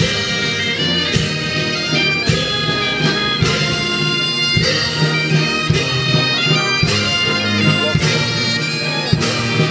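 Military marching band playing a march outdoors, brass and wind instruments over a heavy drum stroke about once a second.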